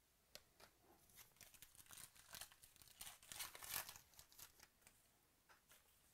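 Foil wrapper of a 2018 Panini Illusions football card pack being torn open and crinkled by hand: a quiet run of crackles that builds to its loudest about three and a half seconds in, then dies away.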